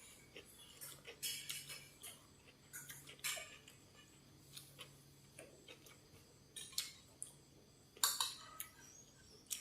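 Eating utensils clicking and clinking against a plate or bowl in a scatter of sharp taps, the loudest about eight seconds in.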